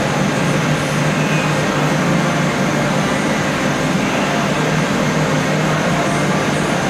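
Steady machine-shop background drone with a low hum running under it, with no change or break.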